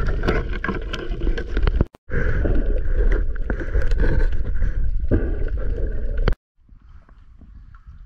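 Loud rushing water and wind noise with a low rumble. It cuts out abruptly about two seconds in, comes back, and drops to quieter gurgling water a little past six seconds.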